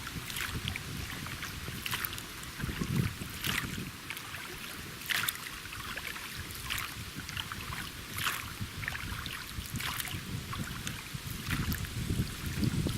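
Oars dipping and pulling through river water in a steady rowing rhythm, about one splashy stroke every second and a half to two seconds. Strong wind rumbles on the microphone underneath.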